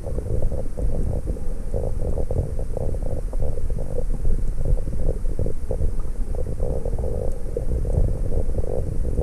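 Underwater water noise picked up by a submerged GoPro Hero 5's built-in microphone. It is a steady low, muffled rumble with irregular soft crackles.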